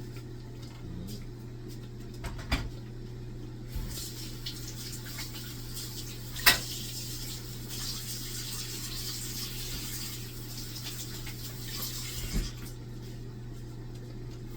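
Kitchen tap running for several seconds, turned on about four seconds in and off near the end, with a few clinks and knocks of kitchenware, the sharpest a single clack midway, over a steady low hum.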